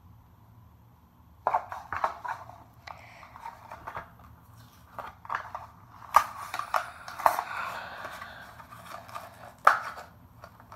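Hot Wheels blister card being opened by hand: the plastic blister crackles and crinkles and the cardboard backing is peeled and torn, with sharp clicks. It starts about a second and a half in and is busiest a little past the middle.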